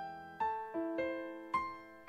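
Slow piano music: single notes struck about every half second, each ringing out and fading before the next.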